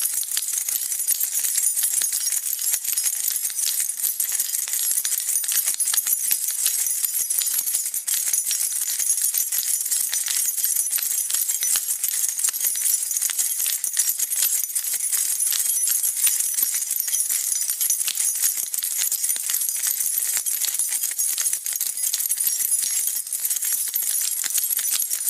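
A bunch of keys jingled without a break, a dense run of small bright metallic clinks.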